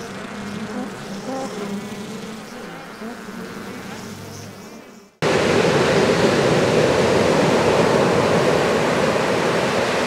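A buzzing bee sound effect, wavering, for about five seconds. Then a sudden cut to loud, steady rushing noise of ocean surf with wind on the microphone.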